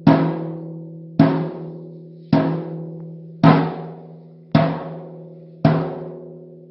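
A drum struck six times at an even pace, about once a second, each hit ringing with a low pitch and fading before the next.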